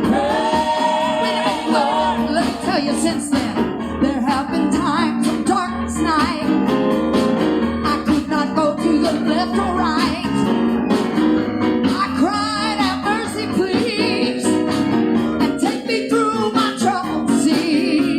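Live gospel praise-band music: voices singing over keyboard and guitar, with a steady low beat.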